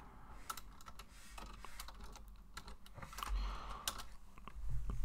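Typing on a computer keyboard: a run of irregular keystroke clicks.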